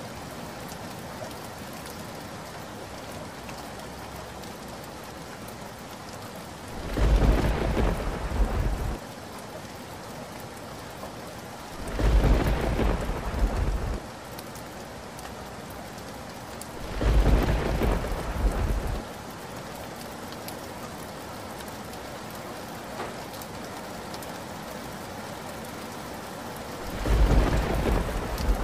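Steady rain falling through the whole stretch, broken four times by loud claps of thunder, each about two seconds long. The first three come roughly five seconds apart, and the last follows after a longer gap, near the end.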